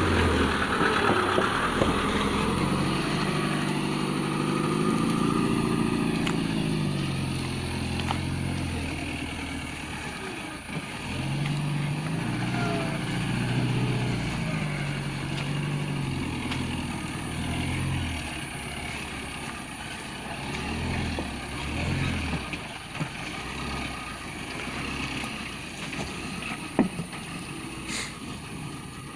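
Sand truck's engine working under load, its note climbing and falling in two long stretches before easing off to a lower rumble. A short sharp knock near the end.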